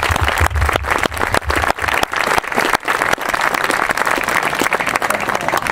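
Small audience applauding, dense and steady throughout.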